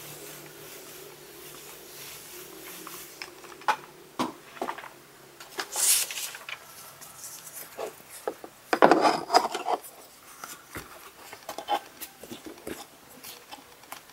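Handling sounds of EVA-foam crafting: scattered clicks and knocks of a clothes iron and a plastic modeling form on a tabletop, and rubbing as a heated EVA foam sheet is pressed and stretched over the form by hand. There is a burst of rustling about six seconds in, and the loudest cluster of rubbing and knocks comes around nine seconds in.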